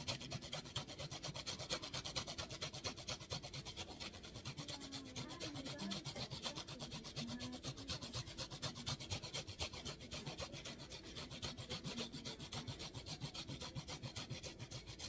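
Fresh ginger being grated on a grater: quick, regular rasping strokes.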